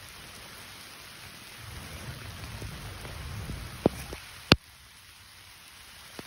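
Light rain falling in a steady hiss, with two sharp taps close together about four seconds in.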